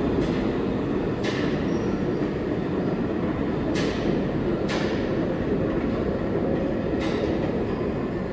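New York City subway train running on the track with a steady rumble, and about five sharp clacks of its wheels crossing rail joints spaced a second or more apart.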